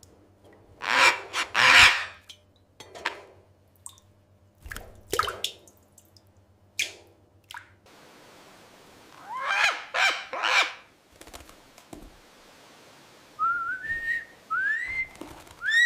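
A parrot calling: a run of short, harsh squawks, then several rising whistles near the end.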